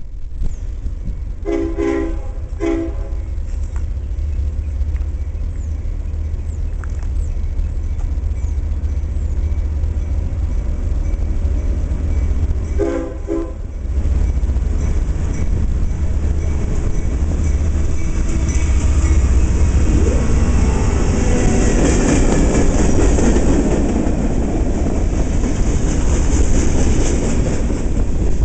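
Approaching freight train sounding its horn: two short blasts a couple of seconds in and another longer one about 13 seconds in. The lead locomotives then pass close by, with the noise building, and the freight cars follow, wheels hissing and rumbling on the rails.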